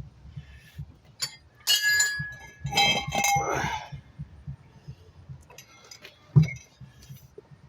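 Metal tools and bike crank parts clinking and knocking during assembly, with a ringing metallic clang about two seconds in and a sharp knock near the end.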